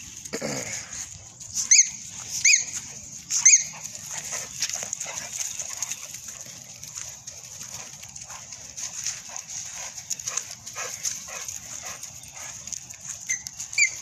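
XL American Bully dogs roughhousing on leaf-covered ground, with scuffling and rustling throughout. Three short high-pitched dog cries come about a second apart in the first few seconds, and a few more near the end.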